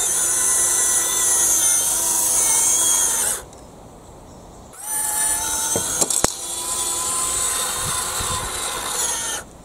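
Small N20 gear motor with a 1:200 gearbox whirring as it turns an 8 mm lead screw, working a homemade linear actuator that raises and then lowers a toy excavator arm. It makes one steady run of about three and a half seconds, stops for about a second and a half, then runs again for about four and a half seconds, with a couple of sharp clicks early in the second run.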